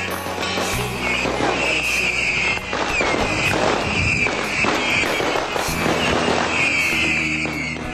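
Strings of firecrackers going off in rapid, dense crackling, with a shrill wavering high tone sounding over them.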